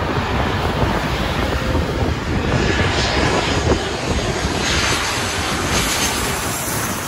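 Loud, steady engine noise of an airplane at close range, beginning abruptly just before and holding level.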